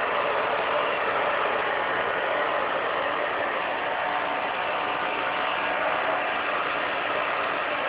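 Hair dryer running steadily: an even rush of blown air with a faint motor whine.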